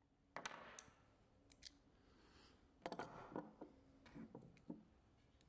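Faint, scattered metallic clicks and short scrapes of a digital caliper's depth gauge being slid and set against a bicycle hub end cap to measure it.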